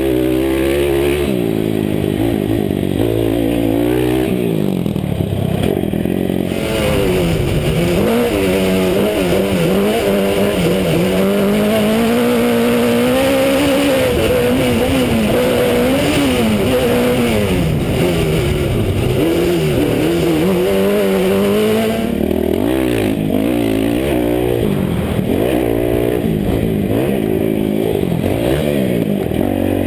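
Motocross dirt bike engine revving up and down as it rides, then an off-road race truck's engine revving hard and rising and falling through the gears for about the middle half, then the dirt bike again for the last several seconds.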